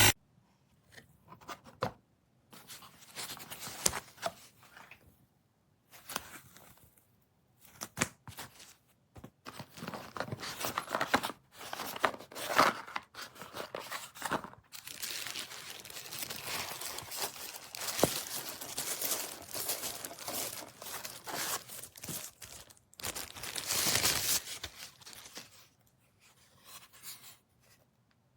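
Irregular rustling, crinkling and scraping handling noises in stop-start bursts.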